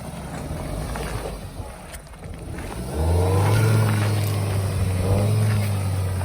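Mahindra Thar's turbo-petrol engine running low, then about three seconds in the revs come up and hold steady as the 4x4 pulls across rough ground.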